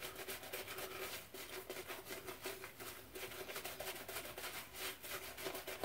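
Synthetic shaving brush working soap lather on the face: a faint, quick run of small crackling, squishy strokes.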